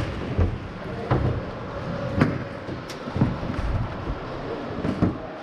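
Irregular thuds and rustling, like footsteps and gear shifting as an airsoft player moves, with several sharp clicks, the sharpest about two seconds in.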